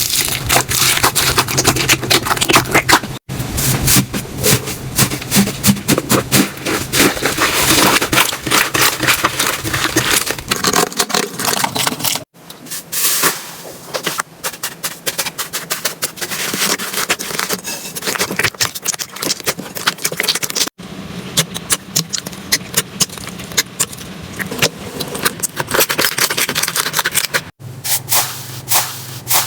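Slime being squished and worked, giving a dense run of crackling, popping clicks. The sound cuts out briefly four times.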